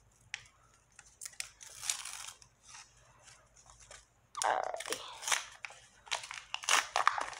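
Plastic Pokémon card booster-pack wrapper crinkling and tearing as it is worked open by hand. It comes in irregular crackles, with a short flurry a little over a second in and busier crinkling through the second half.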